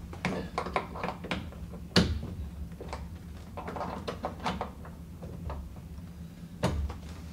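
Light clicks and taps of small parts and a tool being handled against the tub deck around the valve trim, with two sharper knocks, one about two seconds in and one near the end.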